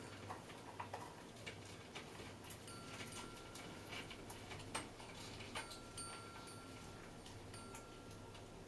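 Congo African grey parrot making faint, irregular clicking sounds with its beak and tongue. A soft, steady high tone is held for about a second three times.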